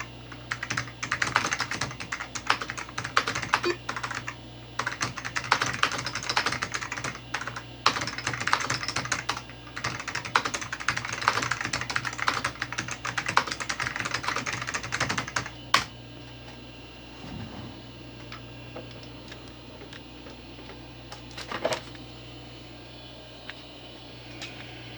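Fast typing on a 1990s IBM 106-key keyboard with Alps white mechanical switches: a dense run of clicky keystrokes that stops about two-thirds of the way in. A steady low hum runs underneath, with one lone keystroke or click a few seconds before the end.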